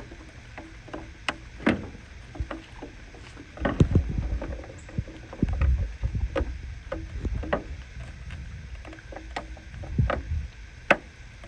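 Scattered clicks and light knocks of plastic parts being handled, with a few dull thumps about four and six seconds in, as a bulb socket is fitted and twisted into a Ford F-150 taillight housing.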